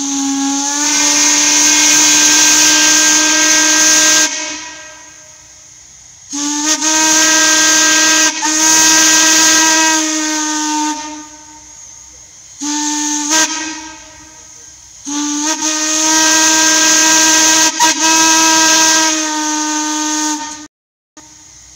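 Norfolk and Western boat whistle blown on steam, sounding one steady, deep note in several long blasts of a few seconds each. Each blast slides up slightly in pitch as it opens, and steam hisses quietly between the blasts.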